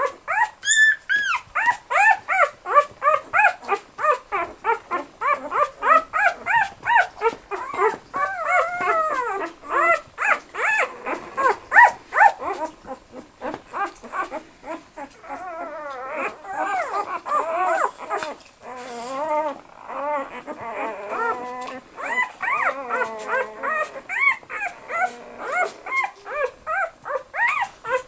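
Newborn Australian Shepherd puppies whining and squeaking in quick, repeated high calls, several voices overlapping, with a few longer drawn-out whines around the middle.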